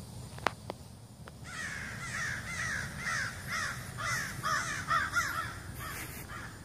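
Several crows cawing over and over in a rapid, overlapping series, the birds raising alarm at a bear nearby. Two short clicks come about half a second in, before the calls start.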